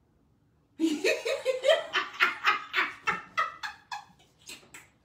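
A person laughing hard: a run of quick laughs at about four a second, starting about a second in and thinning out near the end.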